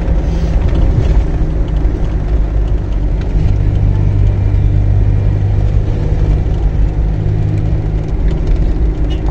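Steady low engine drone and road rumble heard from inside a moving vehicle's cabin. The engine note grows stronger from about three and a half seconds in, then eases back.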